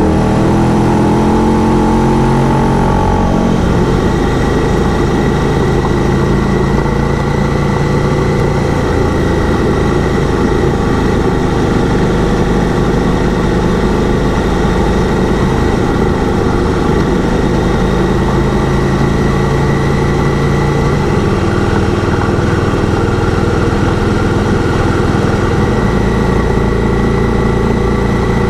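Motorcycle engine running while riding on a gravel road, its pitch shifting in the first few seconds and then holding fairly steady, over constant wind and road noise.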